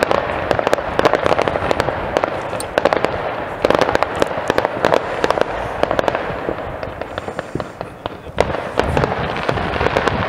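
Many fireworks going off at once: a continuous din of bangs and crackling, with sharper single bangs standing out every second or so.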